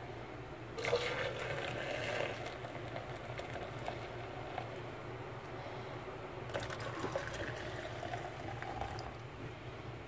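Hot water poured from a saucepan into plastic shaker cups, twice: once from about a second in and again from about six and a half seconds. The pitch of the filling rises as each cup fills.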